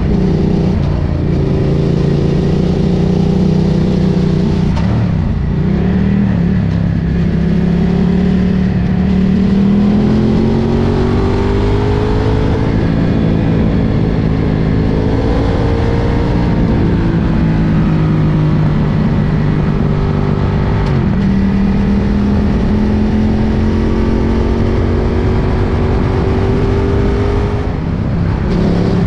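Ducati Diavel's L-twin engine under way, its note climbing steadily for several seconds at a time and then dropping or stepping with gear changes, about five seconds in, about twenty-one seconds in, and near the end, over a steady rush of noise.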